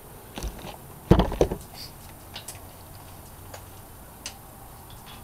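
Scattered clicks and knocks of hand work on a bare engine top end, with a short cluster of louder knocks about a second in and a few light ticks after.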